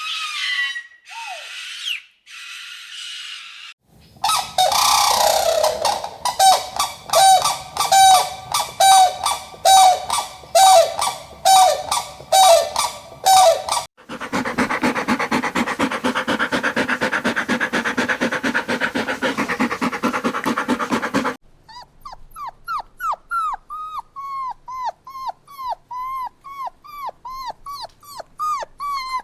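Animal recordings cut one after another: a few brief high calls, then evenly spaced yelps about two a second, a dense buzzing stretch, and a puppy whimpering in short falling cries about two a second.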